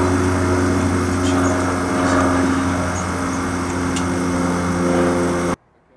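Steady mechanical drone, a hum of several even tones over a hiss, that cuts off abruptly near the end.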